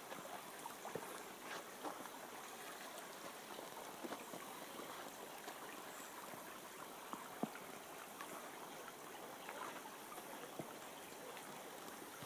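Faint, steady trickle of a shallow forest stream flowing over stones, with scattered light footsteps on a dirt path.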